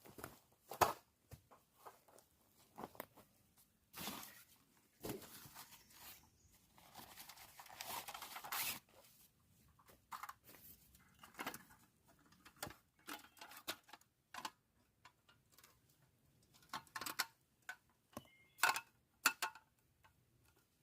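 Camping gear being handled: fabric rustling, with scattered clicks and taps and a longer rustle of about two seconds near the middle.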